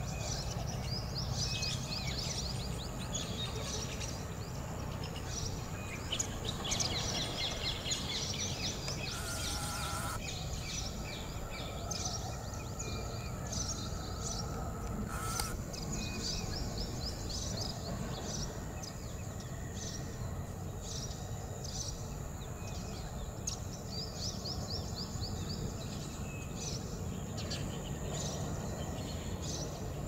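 Birds chirping over and over in short, high calls, many close together, over a steady low background rumble. Two brief louder sounds come through partway in, one at about ten seconds and one at about fifteen.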